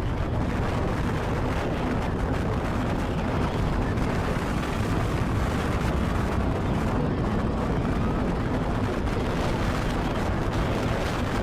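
Strong tornado wind blowing hard across the microphone: a dense, steady rumble with fine crackling throughout.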